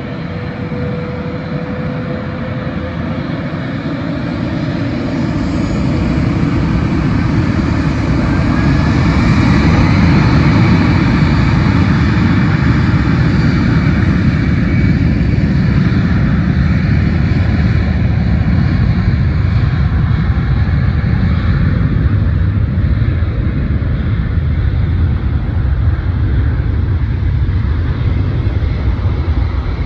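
Twin-engine jet airliner's turbofan engines at take-off power, the roar building over the first ten seconds with a rising whine. It then holds loud and eases slowly as the jet takes off.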